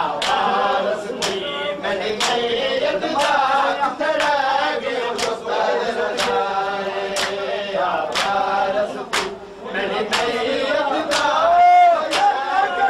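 A crowd of men chanting a noha in unison, kept in time by matam: open-hand slaps on bare chests, about one a second. Near the end a single voice cries out loudly over the group.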